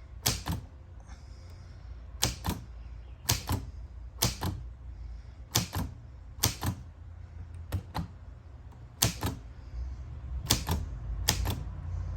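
Hermes 3000 manual portable typewriter being typed on slowly: about eleven single key strikes, each a sharp clack, spaced unevenly about a second apart.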